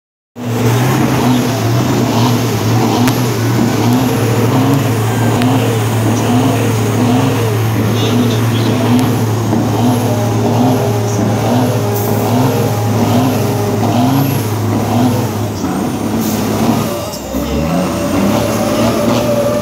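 Two semi-truck tractors, a Kenworth and a Western Star, doing burnouts: diesel engines held at high revs while the rear tires spin on the pavement. The steady engine note breaks off about three-quarters of the way through.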